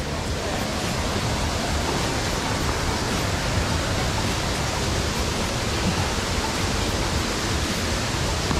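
Steady rush of a waterfall and mountain stream: an even wash of falling water with no break.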